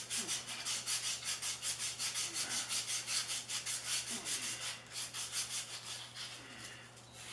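Emery cloth rubbed rapidly back and forth around a Troy-Bilt Super Bronco tiller's tine shaft, about seven strokes a second, thinning out near the end. The shaft is being polished clean so the new tine oil seal can go on.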